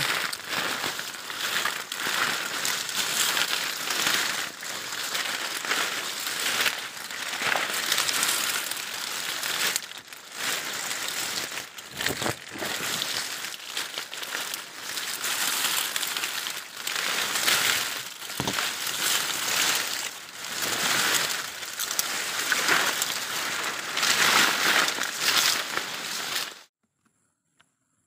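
Tall, dense grass and leaves rustling and crackling as someone pushes through on foot, a long uneven run of brushing and snapping stalks that cuts off suddenly near the end.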